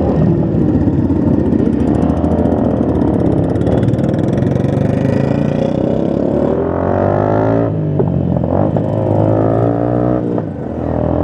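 Motorcycle engines running in a group ride, with the engine pitch rising twice as a bike accelerates through the gears, the first run cutting off sharply about two-thirds of the way through, over a steady low rumble.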